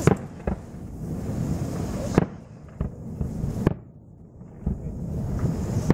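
Fireworks bursting: a string of sharp bangs at uneven intervals, about seven in six seconds, over a low rumble, the loudest at the very start and about two seconds in.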